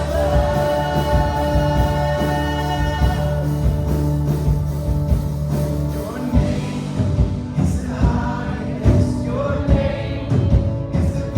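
Live worship band with singers: sung notes held over sustained chords, and a steady beat comes in about halfway through.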